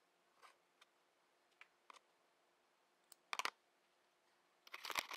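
A few faint scattered clicks, then two short bursts of louder clicking and clattering, one about three and a half seconds in and one near the end.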